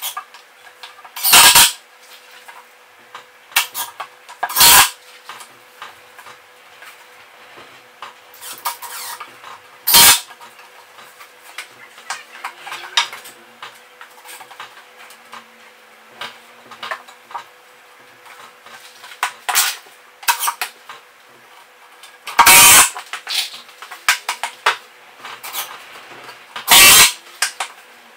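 Cordless drill driving screws into an MDF and timber frame in five short, loud bursts, with small clicks and clinks of screws and tools being handled between them.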